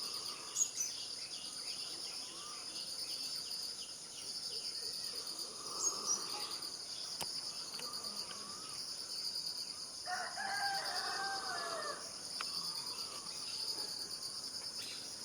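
Continuous high chirring of insects, with a few brief bird chirps and, about ten seconds in, a longer arching bird call lasting some two seconds.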